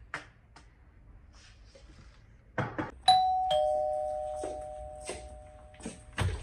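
Two-tone doorbell chime: a higher note, then a lower one about half a second later, both ringing on and fading over about three seconds. A few light taps and a thud come just before it.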